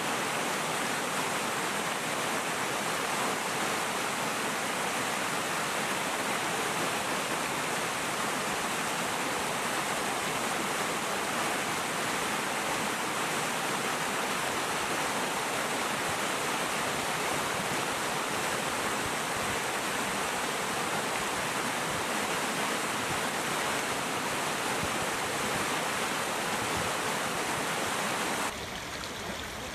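Steady rushing of flowing water from a stream or waterfall. Near the end it cuts abruptly to a quieter, lighter flow of water.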